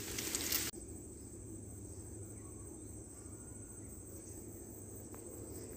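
Forest insects chirring in a steady, high, thin drone. A brief rustling noise overlaps it at the start and cuts off abruptly under a second in.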